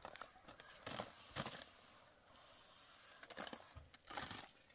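Faint, scattered knocks and scrapes of hand work on a concrete-block wall, a few at a time with quiet gaps between.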